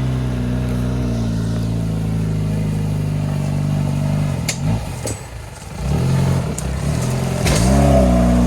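Small off-road 4x4's engine running steadily under load, then easing off about four seconds in and revving up and down twice in short bursts, with a few sharp knocks in between.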